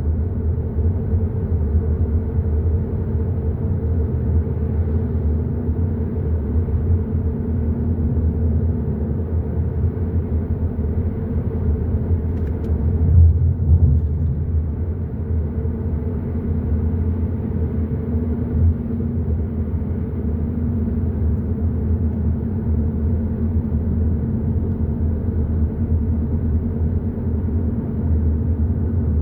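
Hyundai i30 N Line driving along, a steady low rumble of engine and tyres on the road, swelling briefly louder about halfway through.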